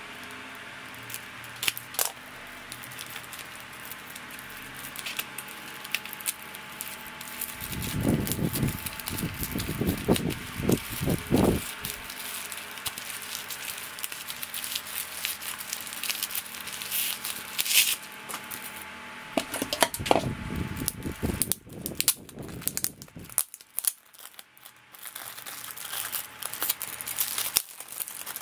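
Bubble wrap and a clear plastic sleeve crinkling and crackling as they are handled and unwrapped by hand, with scattered crackles and a few louder bumps of handling.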